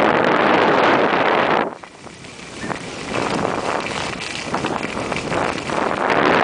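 Wind rushing over the microphone of a camera carried by a skier going downhill. It drops away sharply just under two seconds in, then slowly builds back up.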